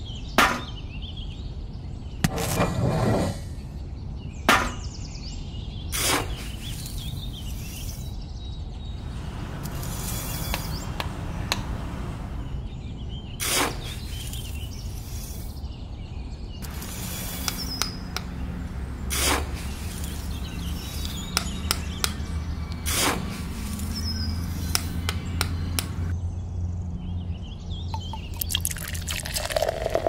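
Small tin buckets and a metal scoop clinking and scraping as they are handled and filled with sand and cement mix, in scattered light knocks. Near the end, water splashes as it is poured into a tin-can mixer drum.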